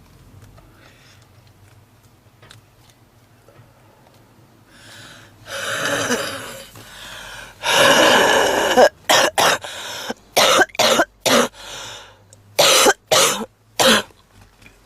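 A woman's heavy smoker's cough. After a few seconds of quiet come two long, rough coughs around the middle, then a fit of short, sharp coughs in two runs, about six and then about four.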